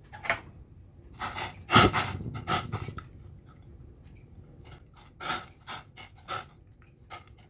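Short knocks and clatter from handling a cooking pot in the kitchen. The strokes come in two groups: several close together with the loudest about two seconds in, then a few more spaced out later.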